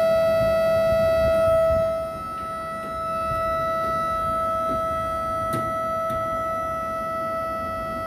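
Indesit condenser tumble dryer's condensate drain pump giving a loud, steady high-pitched whine, stepping down in loudness about two seconds in. The technician traces the noise to the drain pump, which he thinks is not draining the water properly; debris is later found in it.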